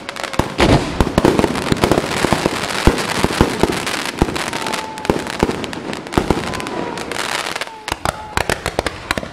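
Fireworks display: a dense, rapid string of bangs and pops from low-bursting shells and sparkling effects. There is a brief lull about eight seconds in, then more sharp bangs.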